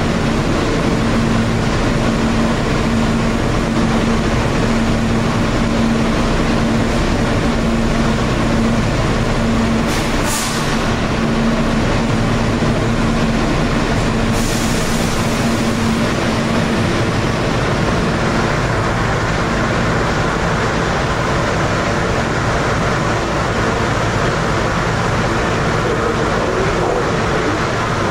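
R160B subway car with Siemens propulsion running on the rails: a steady loud rumble of wheels and car noise, with a steady low hum through the first half. Two short high hisses come about ten and fourteen seconds in.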